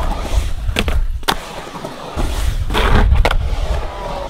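Skateboard wheels rolling on a concrete bowl, a low steady rumble. There are a couple of sharp clacks from the board about a second in, and a louder stretch of rolling near the end.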